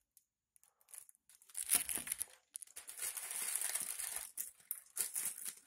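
Plastic wrapper of an opened Indomie instant-noodle packet crinkling and crackling as fingers rummage inside it. It starts about a second and a half in with a short crackle, then a longer stretch of crinkling.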